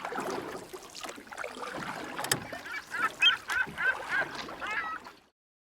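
Birds calling: a run of six or seven short, repeated calls in the second half, over mixed background noise. The sound cuts off suddenly near the end.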